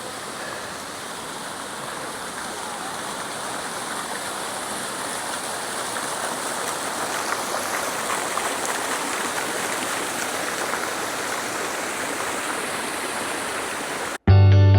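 Rushing, splashing water of a garden fountain, a steady wash that grows gradually louder. It cuts off suddenly near the end, replaced by loud guitar music.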